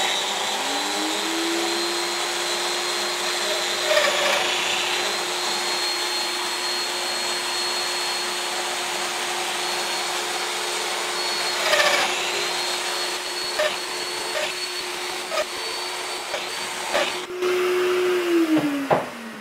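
Festool Domino joiner running with its dust extractor drawing through it, a steady mechanical whine with a couple of brief surges as mortises are plunged into the edge of a maple board; the motor winds down near the end.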